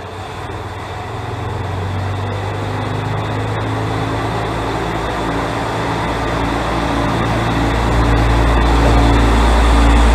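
Diesel railcar of the Mizushima Rinkai Railway's MRT300 series pulling away from the platform, its diesel engine running harder as it accelerates. The low engine hum builds steadily from about a second in, with the engine note rising slightly, and is loudest near the end.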